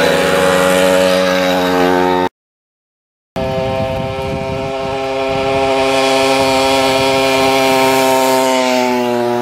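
Small two-stroke moped engines running with a steady, buzzing pitch. The sound cuts off abruptly about two seconds in, then about a second later an engine comes back, its pitch dropping slightly near the end.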